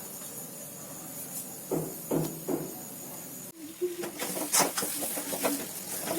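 A few single knocks of kitchen utensils, then after a brief break a spoon clinking and scraping against a pan in quick irregular strokes.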